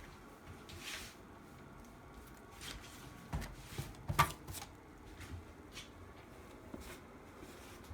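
Soft rustling and handling noises with several light knocks, the sharpest about four seconds in.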